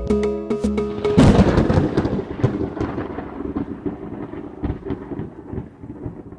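Music stops about a second in, cut off by a loud thunderclap that goes on as a crackling rumble, slowly fading away.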